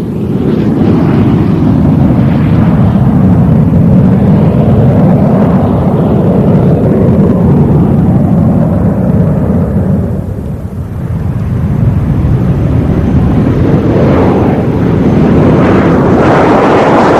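Twin Wright J65 turbojets of a Martin B-57G Canberra running as it taxis: a loud, steady jet rumble that eases briefly about ten seconds in and then swells again, growing brighter and more hissing near the end.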